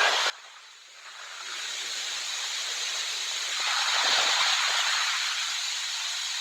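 A steady rushing hiss, like wind or surf, that swells in about a second in and then holds.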